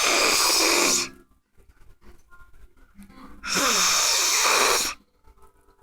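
A sleeping man snoring heavily: two loud snores, each about a second and a half long, some three and a half seconds apart.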